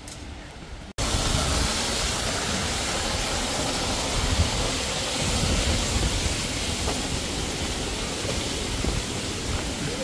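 Mountain stream water rushing steadily, a loud, even hiss that starts abruptly about a second in.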